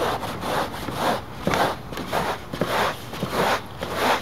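Small handheld rasp planer of the cheese-grater type shaving dirt bike seat foam: a run of quick scraping strokes, about two or three a second.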